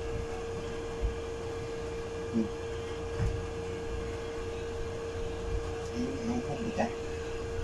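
Steady room hum holding one pitch, over a low rumble, with a few soft knocks and brief low murmurs.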